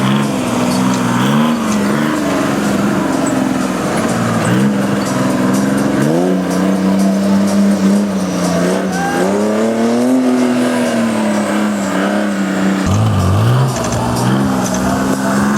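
Off-road buggy engine running hard, its pitch rising and falling several times as the throttle is opened and eased off.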